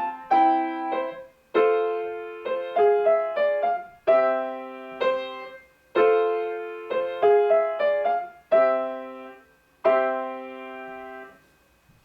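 Solo piano playing a simple piece in short phrases of melody notes and chords, each struck and left to fade. It ends on a final chord held for about a second and a half before it is released, near the end.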